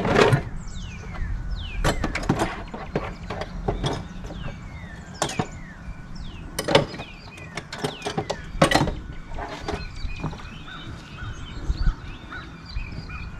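Irregular knocks and clanks of tools or gear being handled, a few seconds apart and unevenly spaced, the loudest near the start and around seven and nine seconds in; birds chirp in the background.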